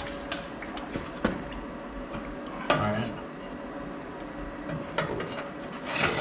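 Scattered metal clinks and taps as a steel caster bracket is worked into the bottom of a square-tube steel table leg.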